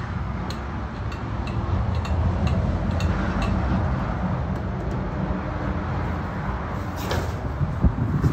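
Indian motorcycle's air-cooled V-twin idling steadily, with a light tick about twice a second over the low rumble. A few sharp knocks near the end.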